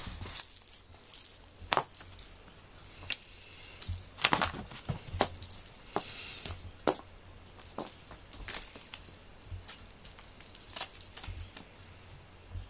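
Light metallic jingling and clinking in short irregular bursts, like a small bell shaken by movement, falling quiet near the end.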